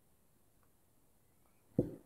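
Faint room tone, then near the end a single dull thud as a SRAM Guide Ultimate brake lever is set down on a felt mat.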